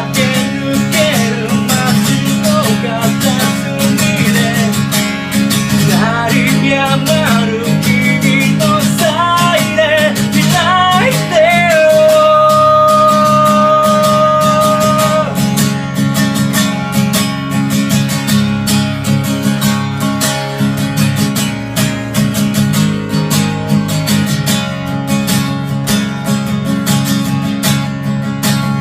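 Guitar strummed steadily under a singing voice, whose line ends on one long held note about halfway through. The second half is the guitar strumming alone.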